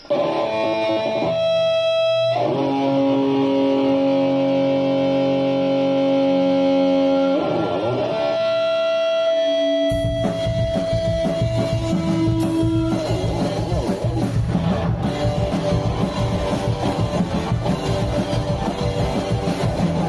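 Rock band playing in a rehearsal studio: electric guitars ring out held chords and notes for about ten seconds, then the drums come in and the full band plays on.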